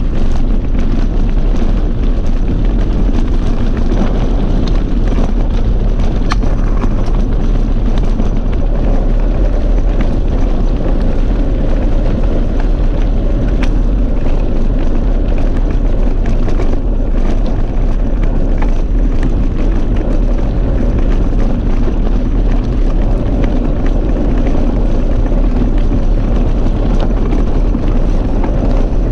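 Steady heavy wind rumble on a bike-mounted camera's microphone while a mountain bike rolls over dirt and gravel track, with scattered knocks and rattles as it goes over bumps.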